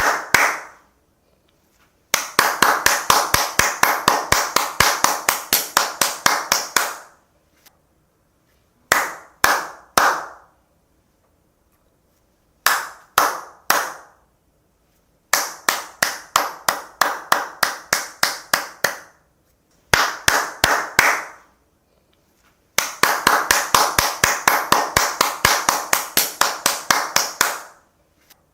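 One person clapping hands in separate bursts: short groups of three or four claps alternate with longer steady runs of about five claps a second lasting several seconds, with pauses of silence between them.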